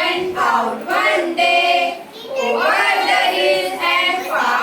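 Young children singing together, in phrases with some notes held.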